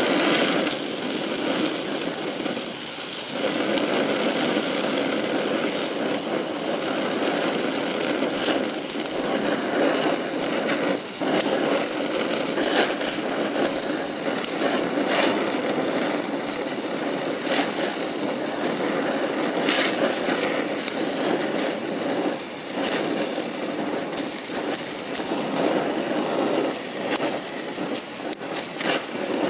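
DHC2000 oxyacetylene torch flame hissing steadily while gas-welding chromoly tubing, with occasional short crackles from the weld puddle.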